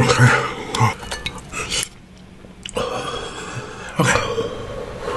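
Close-miked mukbang eating sounds: a man chewing and smacking spicy fried chicken, with low voiced grunts and wet mouth clicks in the first second. A brief lull about two seconds in, then more eating noise.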